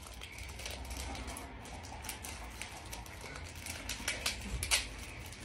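Wrapping on a single cake portion crinkling as it is unwrapped by hand: light, irregular crackles, with a sharper one near the end.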